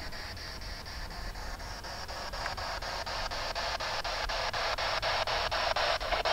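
Spirit box sweeping through radio frequencies: a steady hiss of static chopped by short breaks about five times a second, growing louder.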